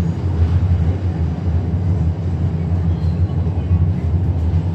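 MRT Putrajaya Line train running between stations, heard from inside the carriage: a steady low rumble from the running gear and motors under an even hiss of motion.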